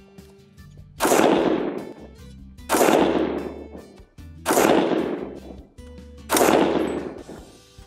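Stag Arms STAG-15 3 Gun AR-15 in .223 Wylde firing unsuppressed. Four loud single shots come a little under two seconds apart, each followed by a ringing tail of about a second that dies away.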